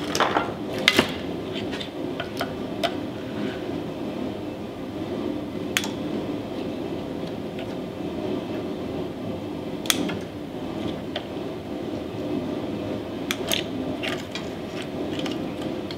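Scattered light clicks and snaps of pliers and plastic wire connectors being handled while the bandsaw's speed-control and trigger wiring is taken apart, over a steady low hum.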